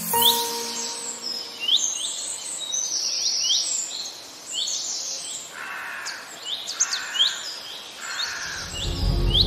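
Birds chirping: a steady stream of short, high chirps, with a lower call repeating three times in the second half. Music with a low beat comes in near the end.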